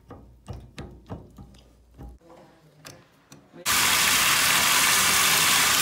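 Faint clicks and knocks of parts being handled. Then, about three and a half seconds in, a loud steady rush of water from a faucet starts suddenly.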